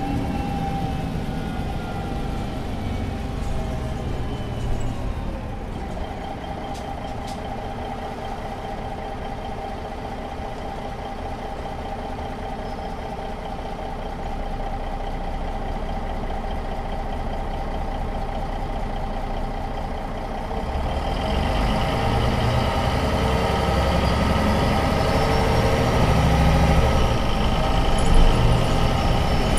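MAN NG 263 articulated city bus with its diesel engine and drive whine falling in pitch as it slows, then idling steadily at a standstill. About two-thirds of the way through it pulls away, and the engine and drive whine rise and grow louder as it accelerates.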